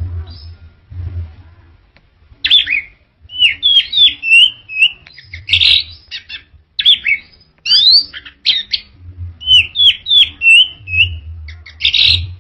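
Orange-headed thrush singing a rapid, varied song of slurred and upward-sweeping whistled notes, starting about two seconds in and running in bursts with short pauses.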